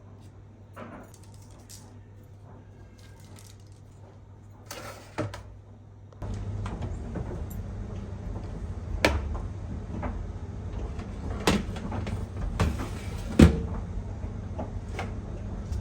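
Scattered knocks and clicks of household objects being handled, over a steady low hum that steps up about six seconds in.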